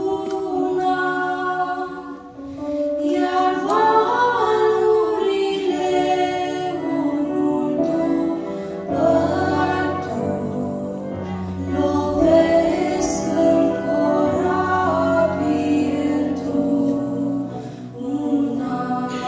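Two girls singing a Romanian hymn together into handheld microphones, with long held notes.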